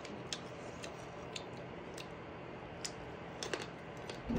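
Quiet, irregular clicks and smacks of a mouth chewing chicken, a few soft ticks spaced unevenly over a faint hiss.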